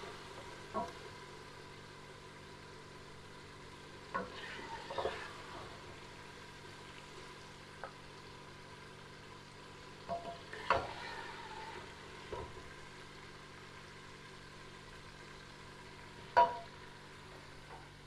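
Serving spoon scraping and knocking against a steel cooking pot and a terracotta bowl as mutton stew is dished out: a handful of short knocks and scrapes, the sharpest near the end, over a steady low hum.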